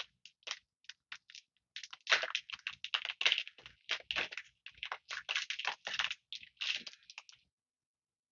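Magic: The Gathering booster pack's foil-lined wrapper crinkling and crackling as it is torn open by hand, in quick irregular bursts that stop about a second before the end.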